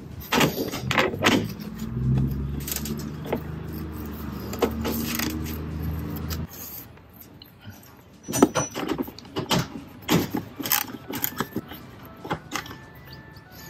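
Metal hand tools clicking and clinking against bolts and the strut tower bar as 8 mm bolts are undone. The clicks come in scattered bursts and grow thick and rapid near the end. Under the first half there is a low steady hum that cuts off about six and a half seconds in.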